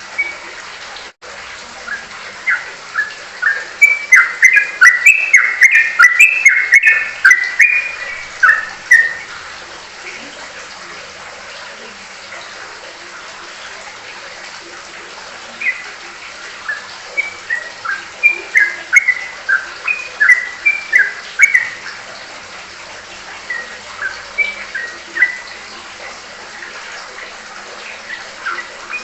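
Yellow-vented bulbul (trucukan) singing in rapid runs of short, loud chirped notes. There are two long bursts of chatter, one about four seconds in and one midway, with a quiet gap between them and a few scattered notes near the end, over a steady background hiss.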